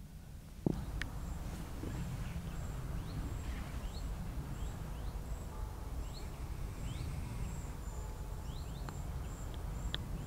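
Night-time outdoor ambience with a steady low rumble, a high insect chirp repeating about twice a second, and scattered short rising chirps. There is a single click just under a second in.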